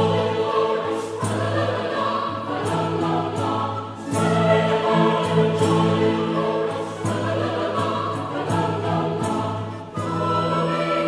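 Background music: a choir singing sustained phrases.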